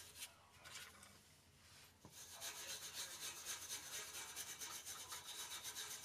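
Small wire brush scrubbing the bare metal of an exhaust flange with quick back-and-forth strokes, cleaning off the old gasket surface. Faint, starting about two seconds in.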